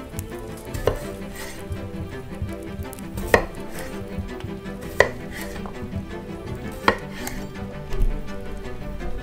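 A chef's knife halving small potatoes on a wooden cutting board: four sharp knocks of the blade striking the board a second or two apart, and a duller thump near the end.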